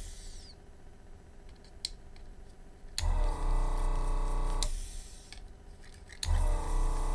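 Yihua 948 desoldering station's vacuum pump running in two short bursts, about three seconds in and again about six seconds in, each starting and stopping with a click as the desoldering gun sucks up melted solder.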